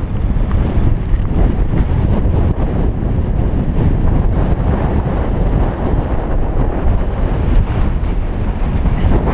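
Strong mountain wind buffeting the microphone: a loud, low rumble that wavers with the gusts.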